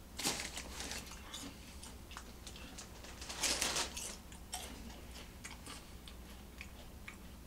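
Lay's potato chips crunching as a man bites and chews them: a run of crisp crackles, loudest about a quarter second in and again about three and a half seconds in.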